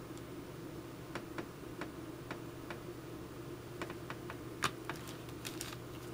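Light, irregular metallic clicks and ticks of small brass screws being picked up and fitted into a leather axe sheath, about a dozen, the loudest a little past the middle, over a steady low hum.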